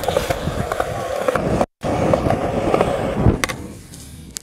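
Skateboard wheels rolling over concrete with scattered small clicks, the sound dropping out for an instant near halfway. About three-quarters through comes a single sharp clack as the board's tail is popped for a flip trick, then the rolling fades.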